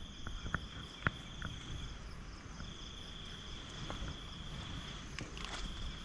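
Crickets trilling steadily: one high continuous tone that drops out briefly about two seconds in. A few faint clicks and knocks sound over it.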